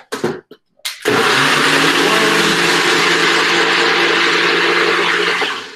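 A NutriBullet personal blender running steadily for about four and a half seconds, puréeing cannellini beans and water until creamy, after a few short knocks in the first second; the motor cuts off shortly before the end.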